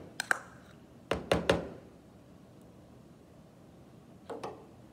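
Metal spoon knocking against the mixing bowl and measuring cup to shake off pumpkin puree: two quick knocks at the start, a cluster of about four about a second in, and two more near the end.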